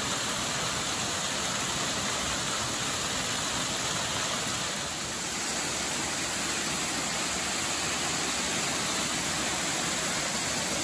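Waterfall cascading down rock slabs on a mountain brook: a steady rush of falling water.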